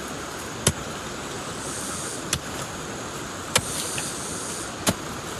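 A hand digging tool chopping into wet, rain-soaked soil four times, each a short sharp strike about a second or so apart, as a plant's root is dug out.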